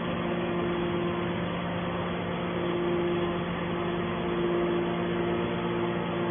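Hydraulic scrap metal baler's power unit running steadily: an even engine-and-pump drone with a constant hum.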